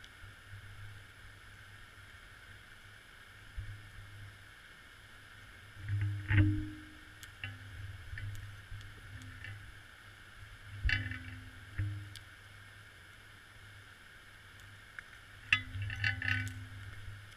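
Underwater audio from a GoPro in its waterproof housing hanging on a line: a steady low hum and hiss, broken by a few muffled knocks and rumbles as the housing sways and bumps, the loudest about six seconds in and another cluster near the end.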